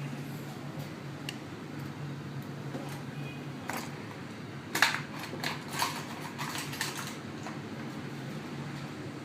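Small sharp clicks and taps of hand tools and phone parts being handled during a smartphone teardown, bunched in the middle with one louder click, over a steady low hum.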